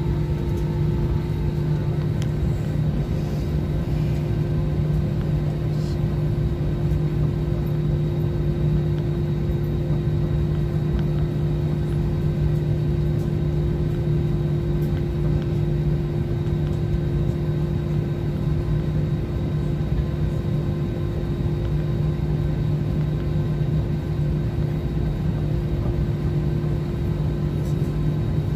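Steady airliner cabin drone: engine and airflow noise with a constant low hum that does not change.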